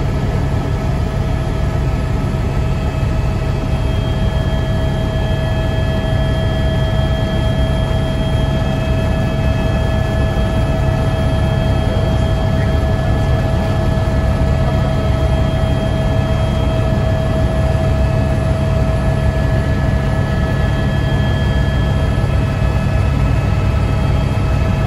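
Helicopter in flight, heard from inside the cabin: a steady, loud low rumble of engine and rotor with a steady high-pitched whine over it.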